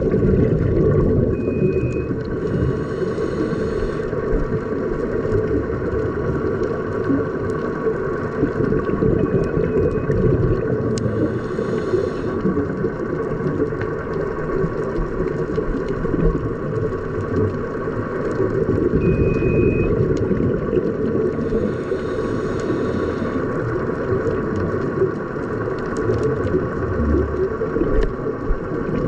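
Underwater ambience picked up through a camera housing: a steady low rumble with faint steady hums. About every ten seconds comes a scuba diver's regulator breath, a short high tone on the inhale and then a hiss of exhaled bubbles lasting about a second and a half, three times.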